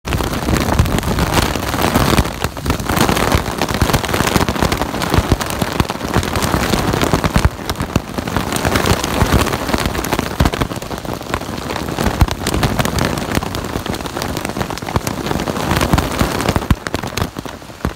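Hailstorm: hailstones pelting down in a dense, loud clatter of countless sharp impacts, surging and easing, dropping off a little near the end.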